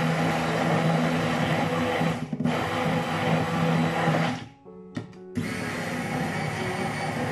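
Hand-held immersion blender running in a bowl of eggs, sugar and mascarpone, with a steady motor hum. It dips briefly about two seconds in, stops for about a second just past the middle, then runs again.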